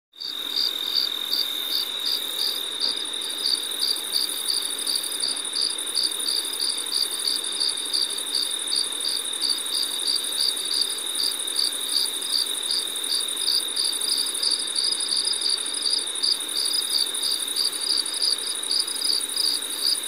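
Insects chirping, starting suddenly: a steady high trill with a regular pulsing chirp over it, about three times a second.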